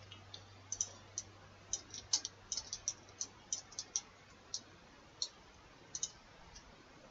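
Computer mouse and keyboard clicks: a quick, irregular run of short, sharp clicks that thins out in the last second or so.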